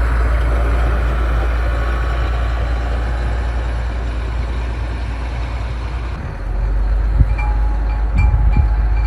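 Street ambience: a steady low rumble of vehicle traffic. About two-thirds through the sound shifts, and a short high beep starts repeating about twice a second, like a vehicle's warning beeper.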